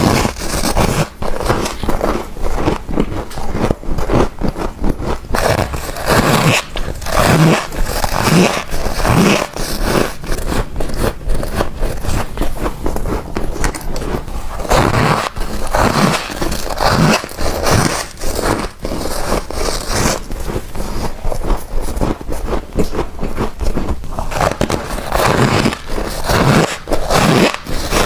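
Close-miked biting and crunching of freezer frost chunks, a dense run of crisp crackling crunches one after another.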